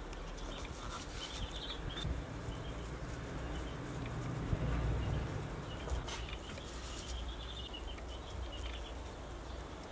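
Outdoor ambience: a steady low rumble with birds chirping faintly now and then, and a few light clicks.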